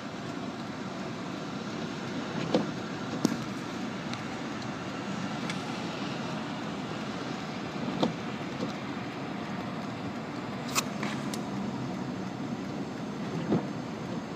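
Car running, heard from inside the cabin as a steady hum, with a few light knocks scattered through it.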